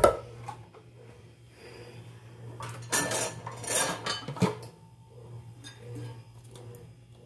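Kitchenware being handled as a colander and blender jar are moved about: a sharp knock at the start, then two short stretches of clattering and scraping about three and four seconds in, ending in a dull thump.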